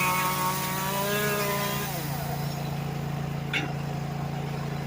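Small two-stroke Echo chainsaw (10-inch bar) revved up for about two seconds, then dropping back to idle. A brief high squeak comes about three and a half seconds in.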